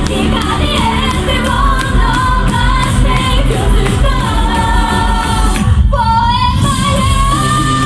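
Female vocalist singing a Japanese idol pop song over a loud band backing; the backing briefly drops out about six seconds in, and a long held note follows.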